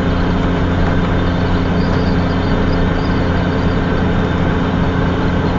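Steady vehicle rumble with a low, even hum underneath, holding the same level throughout.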